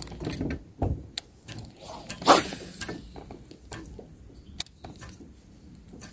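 Scattered clicks and knocks from a spinning rod and reel being handled in an aluminium jon boat, including a low thud a little under a second in. About two seconds in comes one short, louder rushing noise.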